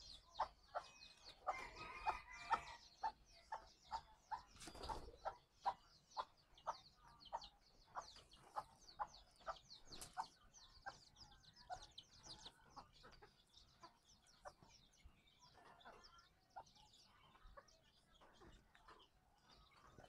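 Hen clucking softly in a steady run of short clucks, about two a second, with chicks peeping high above them; the clucks thin out after about twelve seconds.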